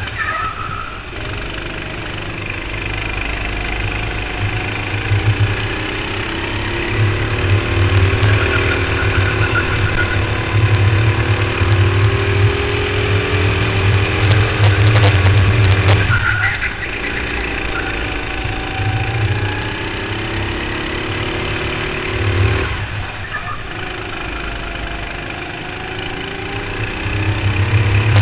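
Go-kart engine heard from on board at speed, its pitch climbing for several seconds at a time and then dropping off sharply twice, about two-thirds of the way through and again a few seconds later, as the throttle is lifted and reapplied.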